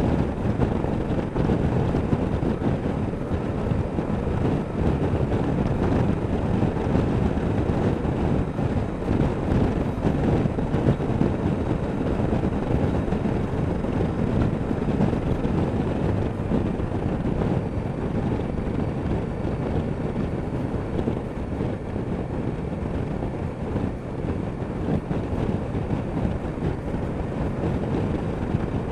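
Steady wind rush over an action-camera microphone on a motorcycle cruising at road speed, with the running Honda Deauville NT650V's V-twin engine and road noise blended in underneath. It stays even throughout, with no gear changes or revving standing out.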